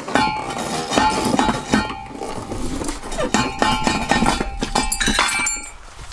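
Steel parts of the truck's driveshaft and mid-carrier bearing clanking and clinking as they are worked loose, each knock ringing on briefly. It is a run of about a dozen knocks with a cluster of sharp, high ticks a little after five seconds.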